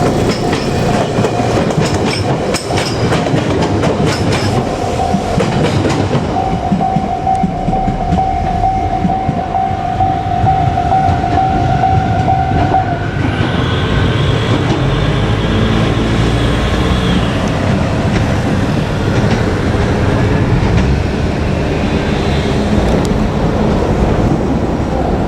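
JR Kyushu 817 series electric train running on the line, its wheels clattering over the rail joints. A steady high tone sounds through the first half and stops about halfway through; a higher, pulsing tone follows.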